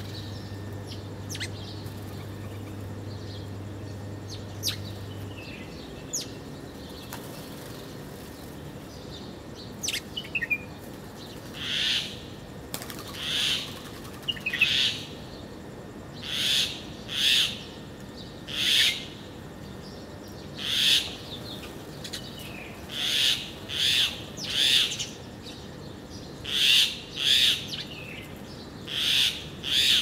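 Small birds at a ground feeder: scattered short, high chirps, then from about a third of the way in a run of short, hissing, rasping sounds, each about half a second long, swelling and fading, often in pairs.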